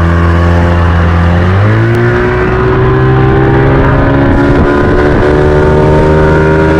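Small outboard motor running with the boat under way. Its pitch steps up about one and a half seconds in as the throttle is opened, then keeps climbing slowly as the boat gains speed.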